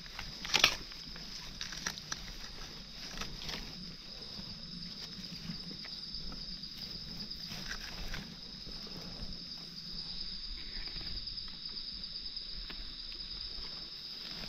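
Steady high-pitched insect drone of forest insects such as cicadas or crickets, with scattered crackles and rustles from dry leaves and twigs being trodden or handled. The sharpest crackle comes about half a second in, with a few smaller ones after it.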